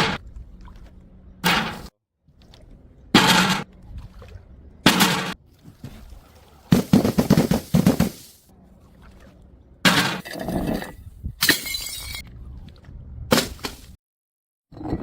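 Glass bottles smashing one after another, about seven separate breaks, each a sharp crash followed by shards tinkling, with a longer stretch of shattering in the middle.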